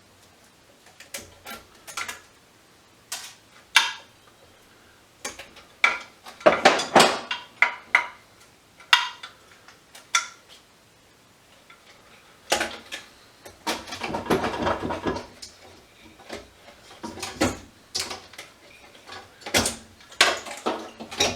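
Hand tools and small metal parts clinking and clattering on a workbench while an electronic unit is taken apart for scrap: scattered sharp clicks and knocks, with two busier spells of rattling.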